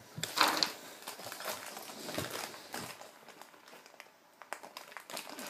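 Plastic parts bags crinkling and small Mega Bloks plastic pieces clicking and rattling in irregular bursts, loudest about half a second in.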